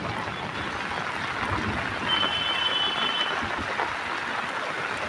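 Steady hiss of rain falling on a flooded street, with a car wading through the floodwater. A short high-pitched beep lasting about a second comes about two seconds in.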